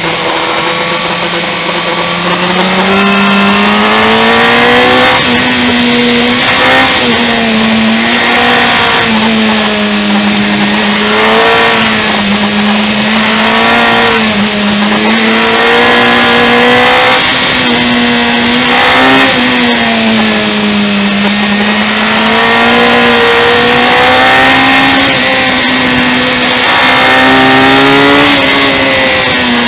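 Motorcycle engine running hard through a run of bends, its pitch rising and falling every few seconds as the throttle opens and closes, over a steady rush of wind noise.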